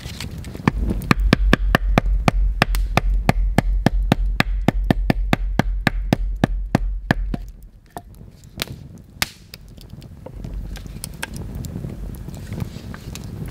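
A knife being batoned into the end of a wooden stick: rapid, even knocks of wood on the knife's spine, about five a second for some seven seconds, then a few scattered knocks.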